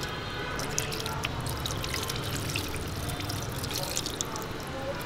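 Wet squelching and splashing of hands kneading raw meat in a pot of red marinade, with liquid dripping and trickling off the fingers back into the pot in many small splashes.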